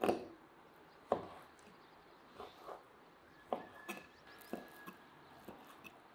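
Large kitchen knife chopping raw beef into small pieces on a wooden cutting board: irregular knocks of the blade hitting the board, about eight in all, the first two the loudest.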